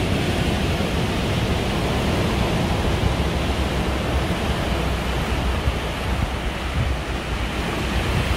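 Ocean surf breaking on a rocky shore and washing over boulders and stones, a steady rush of water with no pauses.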